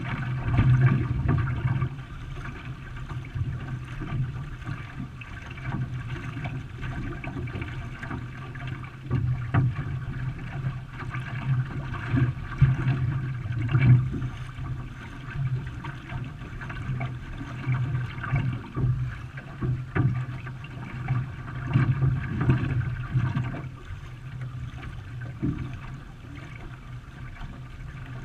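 Water rushing and splashing around a canoe under way in a race, with irregular louder splashes and a steady low rumble underneath.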